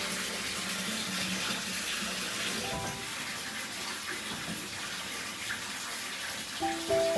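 Steady hiss of running water, with a few soft held musical notes in the background about three seconds in and again near the end.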